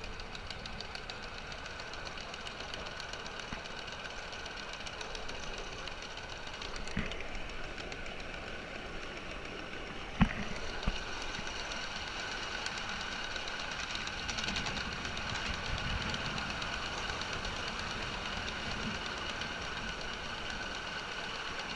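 A 5-inch gauge coal-fired Martin Evans Simplex miniature steam locomotive running steadily along its track under a rider's load, with the clatter of its wheels and wagon on the rails and a couple of sharp knocks, about seven and ten seconds in.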